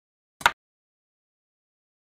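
A single short, sharp clack about half a second in: the move sound effect of a xiangqi piece being set down on the board.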